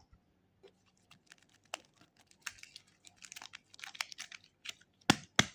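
Plastic wrapper of a super clay packet crinkling and crackling as it is handled and opened, in quick irregular clicks that grow busier, with two sharper knocks about five seconds in.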